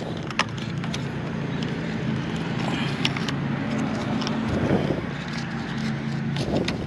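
A motor vehicle engine running steadily as a low hum, with a few faint clicks from gloved hands handling wires and plastic wire nuts in a metal junction box.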